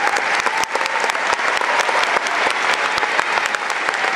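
Large audience clapping steadily: many hands at once, filling the hall.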